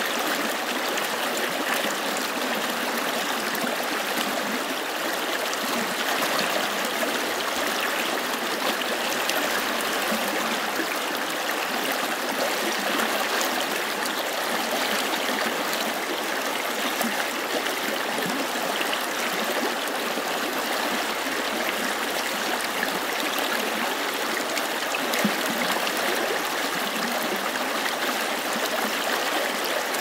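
Shallow stream rushing and babbling over and around rocks, a steady even sound of moving water.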